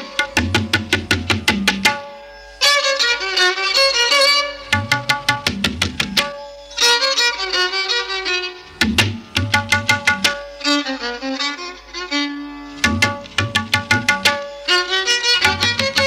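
Instrumental music: a pitched melody over quick, evenly spaced percussive strokes, played in phrases of a few seconds separated by brief pauses.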